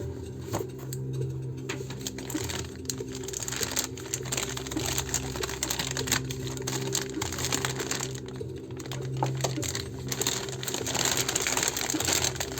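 Parcel packaging being handled and unwrapped: irregular crinkling and rustling with scattered small clicks, over a steady low tone.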